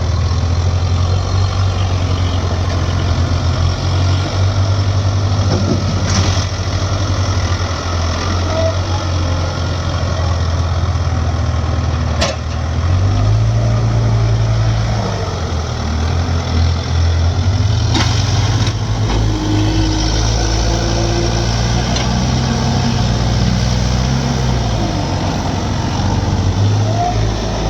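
JCB 3DX backhoe loader's diesel engine running, its note rising and falling a few times as it works. A few sharp knocks are heard about a quarter, half and two-thirds of the way through.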